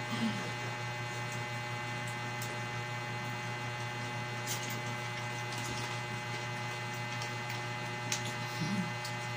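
Steady electrical hum, with a few faint clicks and handling noises over it.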